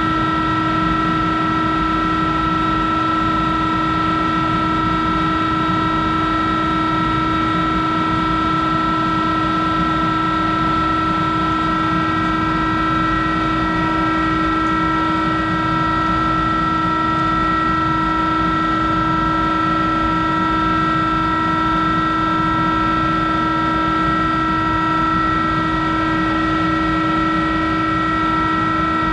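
Monarch 10EE lathe running: a steady mechanical drone with several constant high whining tones from its drive, unchanged throughout.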